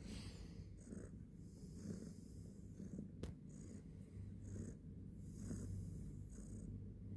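Domestic cat purring, a steady low rumble that swells with each breath about once a second. A single sharp click about three seconds in.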